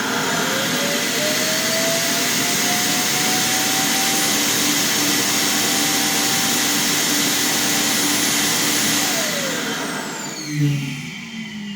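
Roomba Clean Base self-emptying dock's suction motor running, really loud, as it empties the robot's dust bin. A whine rises as the motor spins up, holds steady for several seconds, then falls as it winds down near the end.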